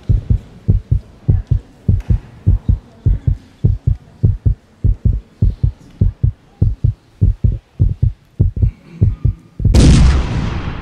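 Heartbeat sound effect: a steady run of paired low thumps, lub-dub. About ten seconds in, it is cut off by a sudden loud boom that dies away slowly.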